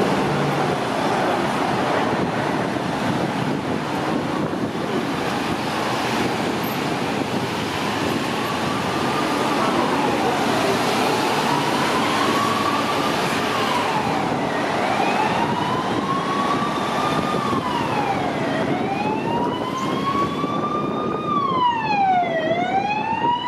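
Convoy of vehicles driving past with steady road noise. From about eight seconds in, a police siren wails, rising and falling in slow cycles of about four seconds and growing louder toward the end.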